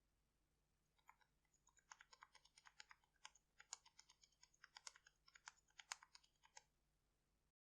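Keys on a mechanical keyboard pressed in quick, irregular succession: a run of faint clicks and clacks that starts about a second in and stops shortly before the end.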